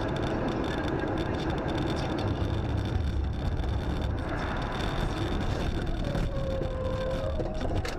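A car driving, heard from inside the cabin through a dashcam microphone: a steady rumble of engine and tyres on the road. A faint held tone sounds about six seconds in for a second or so.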